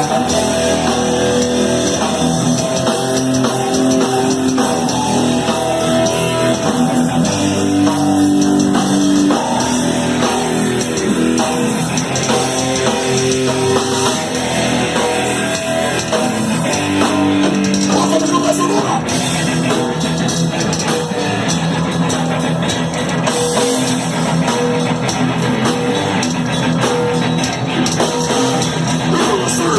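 Live thrash metal band playing an instrumental passage: distorted electric guitars with held and shifting riff notes over a fast drum kit, loud and dense throughout.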